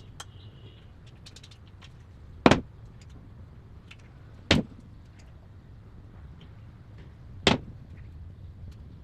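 Three loud, sharp knocks, the first two about two seconds apart and the third three seconds later, with a few faint clicks between them over a low steady rumble.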